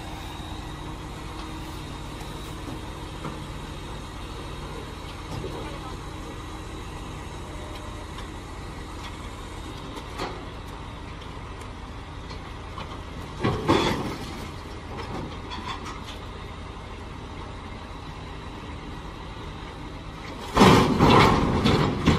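Tow truck's engine running steadily while it winches an overturned tractor-trailer back upright. There is a loud bang about two-thirds of the way in, then a louder, longer crash and clatter near the end as the heavy truck drops back onto its wheels.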